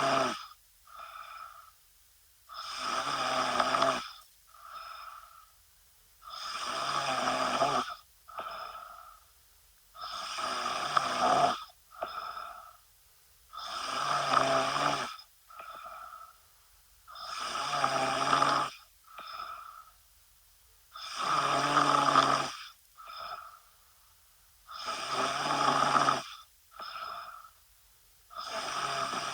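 A woman snoring in a steady rhythm: each breath brings a long, loud snore followed by a short, softer one, the pair repeating about every four seconds.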